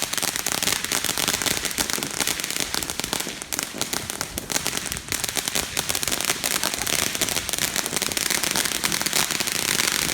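Fireworks crackling: a dense, continuous stream of rapid pops with a brief dip about three and a half seconds in.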